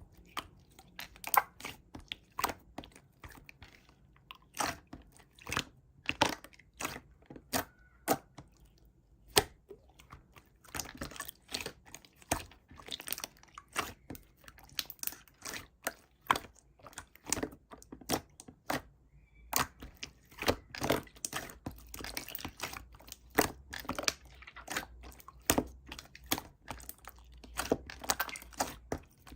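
Slime being squeezed and poked by hand, giving many irregular sharp clicks, pops and crackles, a few each second, with short quiet gaps.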